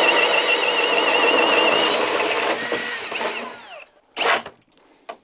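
Cordless Ridgid High Torque Hammer Drill, in drill mode in speed 1, boring a 2 9/16 in bit into pressure-treated lumber. The motor whines and wavers under heavy load, then slows and stops about three seconds in. A short burst of sound comes near the end.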